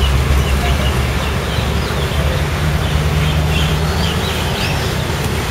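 Short, high chirping animal calls repeated over a steady low rumble.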